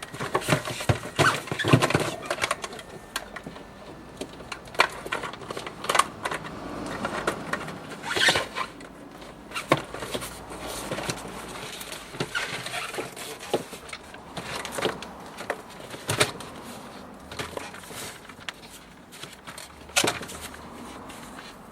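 Irregular clicks, taps and knocks of hands and tools working on a refrigerator's plastic parts during repair, with a few louder clacks.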